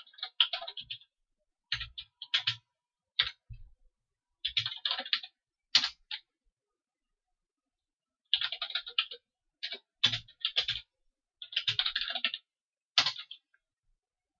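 Typing on a computer keyboard: short runs of quick keystrokes with pauses of a second or so between them, as short shell commands are entered.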